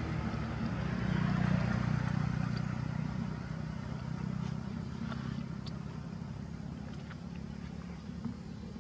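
A motor vehicle's engine running in the background, a steady low hum that swells about a second and a half in and then slowly fades, with a few faint ticks.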